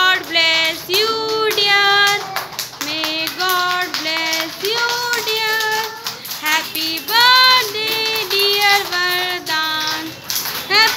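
A group of young children singing a birthday song together in chorus, with a woman's voice joining in; the tune moves in short held notes throughout.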